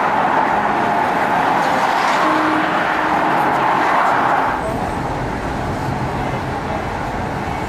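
Road noise inside a moving car's cabin: a steady rushing hiss, which about halfway through gives way to a lower, steady rumble.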